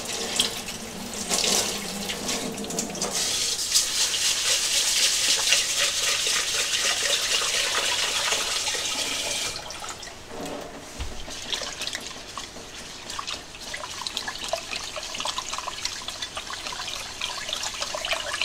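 Tap water running into a sink and an aluminium rice pot for about ten seconds, then rougher splashing and swishing as rice is stirred and rinsed by hand in the water.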